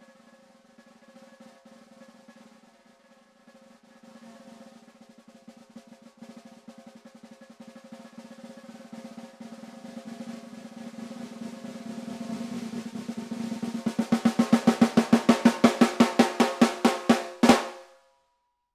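A 14x7 walnut stave snare drum, tuned high, played as a roll that starts very soft and swells steadily louder. About fourteen seconds in, the roll breaks into a run of separate loud strokes that ends on one final accent, and the drum rings briefly before stopping.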